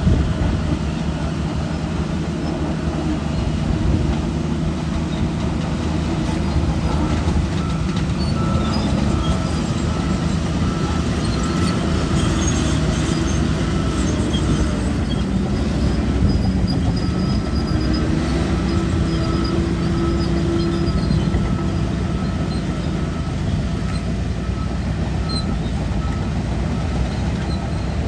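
Shantui DH17 crawler bulldozer working: the diesel engine runs steadily under load with the steel tracks, and thin high squeaks come and go. The engine note rises about 18 seconds in and holds for a few seconds.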